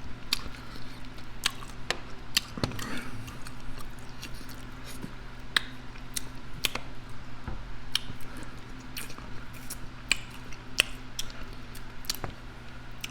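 Close-miked chewing of food with wet lip smacking: irregular sharp smacks and clicks throughout, over a steady low hum.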